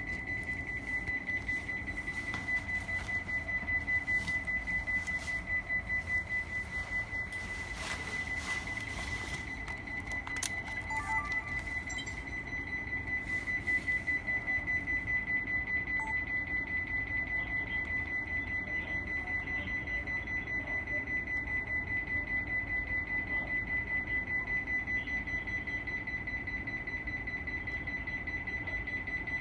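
Emergency alarm buzzer sounding one high, rapidly pulsing beep without a break, the warning that goes with a train's emergency stop at the station.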